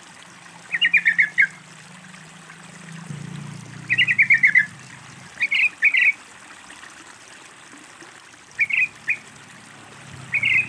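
Yellow-vented bulbul (trucukan) singing: five short, bubbly phrases of rapid notes that step down in pitch, a few seconds apart. A faint trickle of water runs underneath.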